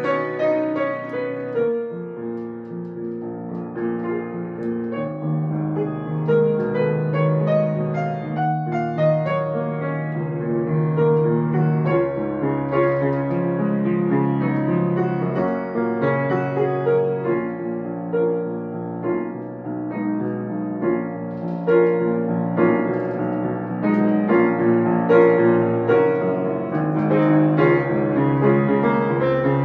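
Upright piano played solo, a melody over chords, with no other sound. It grows louder in the second half.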